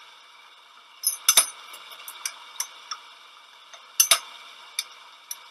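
Sharp metallic clinks and ticks from a small lathe slicing brass nut blanks off bar stock: two loud double clinks, about a second in and again about four seconds in, with lighter ticks between, over a faint steady hum.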